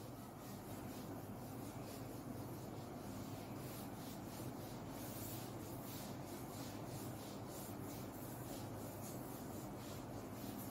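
Whiteboard being wiped clean of marker writing: faint, quick, repeated rubbing strokes across the board surface.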